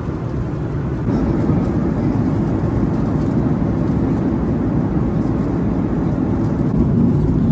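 Steady cabin noise of a Boeing 737-8 MAX airliner in cruise: an even, low rumble of its CFM LEAP-1B jet engines and the airflow past the fuselage. The noise steps up slightly about a second in.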